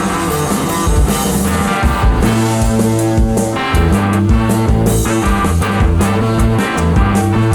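Rock music with electric guitar, bass and drums, playing steadily.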